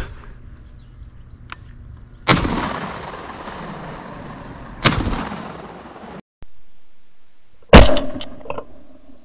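Three shotgun shots, each a sharp report trailing off in a long echo. The first comes about two seconds in and the second near the middle. The third, near the end, is the loudest.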